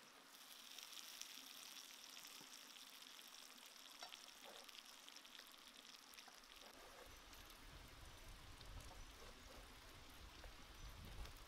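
Chicken pieces dropped into hot oil with chillies and lemongrass in a wok, sizzling faintly. The sizzle is strongest in the first few seconds and dies down, and a low rumble comes in about halfway.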